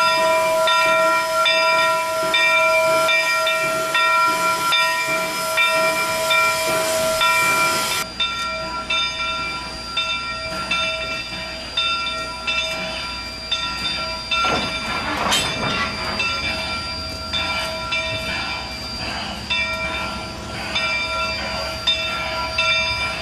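Steam locomotive's bell ringing rhythmically and steadily as the train comes in, with steam hissing and a brief rush of noise about fifteen seconds in.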